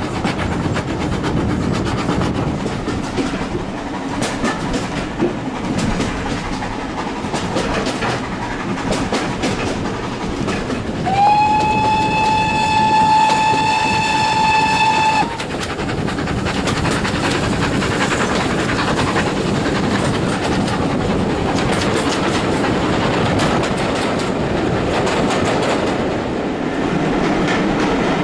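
Steam-hauled train running, heard from an open carriage window: the steady rumble and clickety-clack of the coaches on the rails. About eleven seconds in, the GWR 0-6-0 pannier tank locomotive's steam whistle blows one long, steady note for about four seconds and then cuts off, a warning as the train approaches a tunnel.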